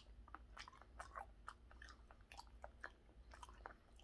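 A man chewing raw tuna belly sashimi close to the microphone: quiet, irregular wet mouth clicks and smacks, several a second.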